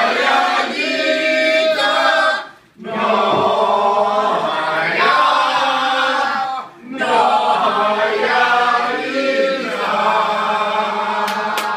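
A group of voices singing together, in phrases broken by two short pauses, with a few claps starting near the end.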